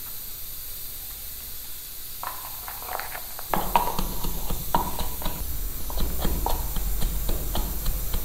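A faint steady hiss, then a utensil knocking repeatedly in a bowl as garlic and salt are worked together for an eggplant achar. The knocks start sparsely about two seconds in and become quick and regular, two to three a second, from about halfway.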